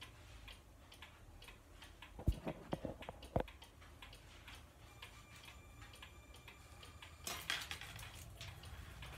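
Faint, even ticking of a pendulum grandfather clock, with a few louder knocks about two to three and a half seconds in and a rushing noise that starts near the end.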